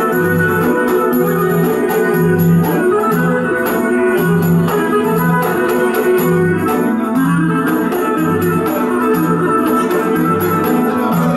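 Live Greek folk dance music led by a clarinet, over an accompaniment whose bass alternates between two notes in a steady, even beat. A hand-held frame drum (defi) keeps time along with it.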